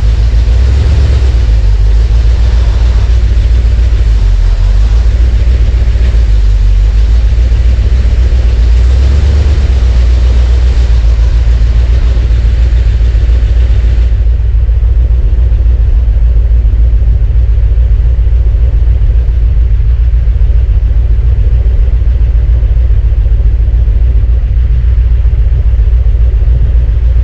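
A 1971 Corvette's V8 engine running with a steady low rumble. About halfway through, the high hiss above it drops away.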